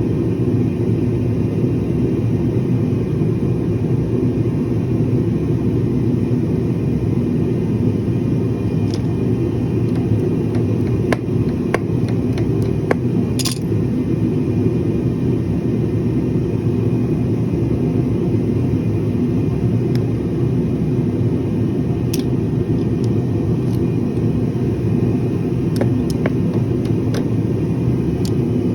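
A steady low mechanical rumble, like a running motor, with a few short light clicks and taps scattered through the middle and near the end.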